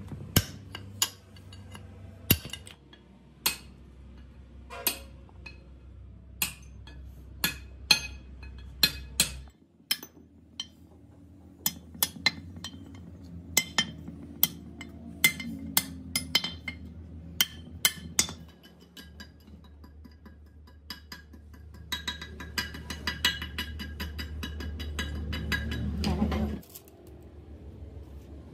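Hammer driving a steel punch against a drum-brake shoe, knocking out the rivets of the old lining: sharp metallic strikes about one a second, over a low hum. Near the end a louder, denser ringing sound builds for a few seconds and cuts off suddenly.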